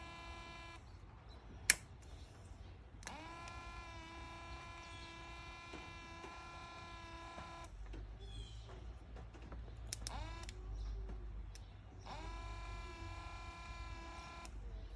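1965 Volvo 122S electric windscreen wiper motor running on the bench with a steady whine, in three spells that each start with a brief rise in pitch as it spins up and end when it is cut off. A single sharp click, the loudest sound, comes a little under two seconds in, with smaller knocks and a low rumble between the runs.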